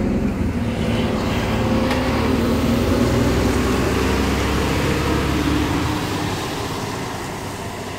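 Diesel engine of an HGV yard shunter running as it drives, a steady low engine note that eases off about six seconds in.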